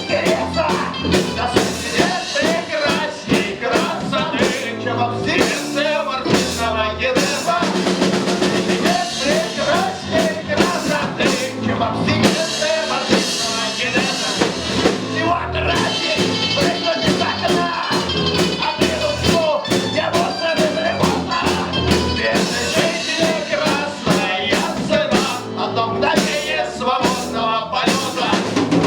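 Live band playing a rock song: a drum kit keeps a steady beat under a melodic lead line.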